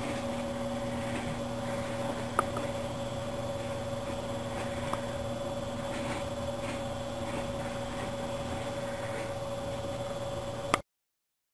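A steady machine hum with a constant whine on top, like a fan or small appliance running in a small room, with two faint clicks; it cuts off suddenly near the end.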